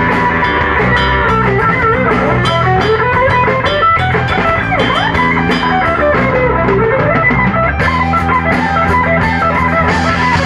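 Live rock band playing loudly on electric bass guitar, guitar and drum kit, with notes sliding down and back up in pitch around the middle.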